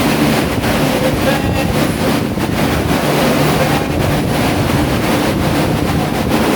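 Several water-damage drying fans and dehumidifiers running together: a loud, steady rushing drone of blown air with faint hum tones from the motors.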